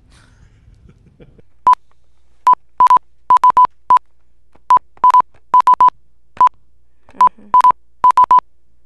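Electronic keypad beeps as keys are tapped on a tablet: about twenty short beeps, all at the same pitch, in irregular clusters.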